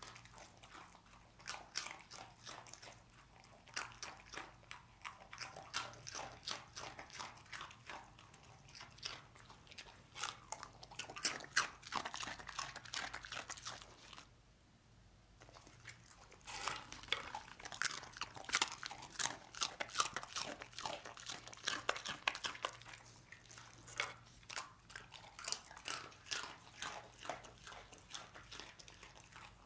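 A dog crunching and chewing dry twisted pasta snacks, with rapid, irregular sharp crunches and a pause of about two seconds halfway through.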